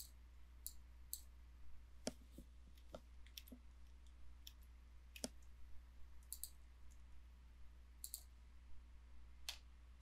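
Computer mouse clicking: about a dozen single, irregularly spaced clicks over a faint low hum.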